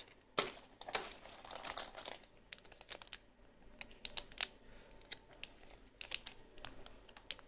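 Clear plastic accessory bag crinkling and rustling in the hands, with scattered light clicks of handling through the rest.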